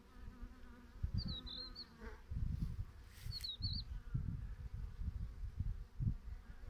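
Honeybees buzzing as foragers fly in and out at a hive entrance. There are irregular low rumbles throughout, and two short high warbling chirps about a second and three seconds in.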